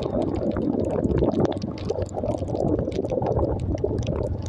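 Rain and wind noise on the microphone of a motorcycle riding through rain over a wet road: a dense, rough, gurgling wash with many small sharp ticks.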